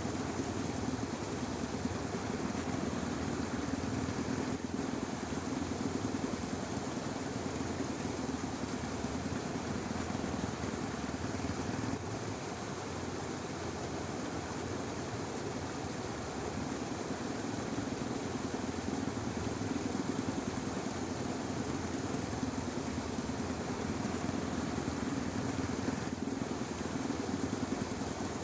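Dense, unbroken chorus of many frogs calling together in a flooded rice paddy, a steady low pulsing drone.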